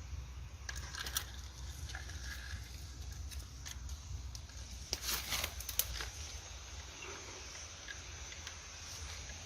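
Dry leaves and twigs crunching and snapping in forest undergrowth, with a cluster of sharper cracks about five seconds in, over a low steady rumble.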